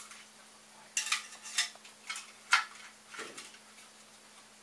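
Wires and their plugs scraping and clicking against the hollow square frame tube of a 3D printer as they are pushed down through it: a short run of sharp clicks and rattles, the loudest about two and a half seconds in.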